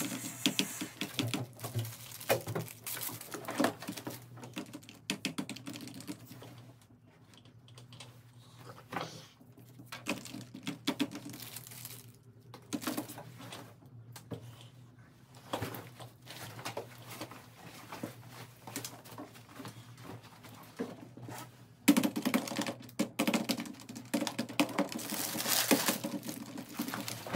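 Typing on a computer keyboard, quick clicks that thin out midway, then a louder stretch of crinkling and rustling from snack bags near the end.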